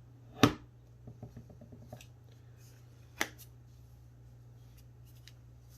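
Small plastic-and-metal flashlight multi-tool being handled: a sharp click about half a second in and another about three seconds in, with faint light ticks between them, over a steady low hum.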